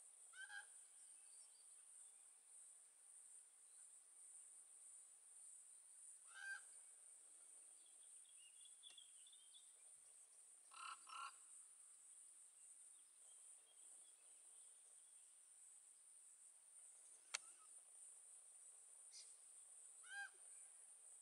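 Faint steady chirring of crickets, with a bird giving about five short calls: once near the start, once about six seconds in, twice in quick succession near eleven seconds, and once near the end. A single sharp click sounds about seventeen seconds in.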